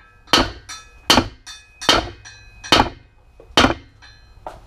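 Hammer blows on the driver bar of a camshaft bearing installation tool, driving a balance shaft bearing into its bore in a 3.7L engine block. There are five strikes a little under a second apart, each with a short metallic ring, and a lighter tap near the end.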